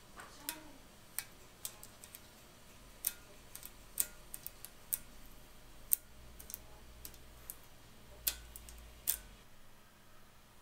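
Irregular sharp clicks and crackles from gloved fingers pressing and peeling the clear transfer sheet of a vinyl decal on a painted bicycle frame, about fifteen in all, with a faint low rumble of handling in the middle.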